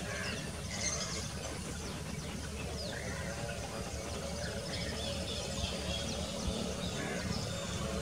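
Natural background ambience: a low steady rumble with faint, scattered chirps and short calls of small birds.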